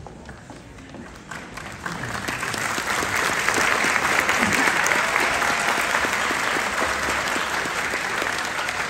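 Concert audience applauding, building up over the first couple of seconds and tapering off toward the end.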